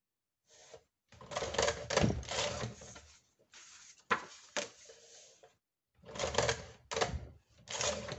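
Cinch binding machine punching holes in a sheet of paper: the handle is worked with several mechanical clacks from the punch mechanism. Paper rustles and slides as a punched sheet comes out and a new one is fed in.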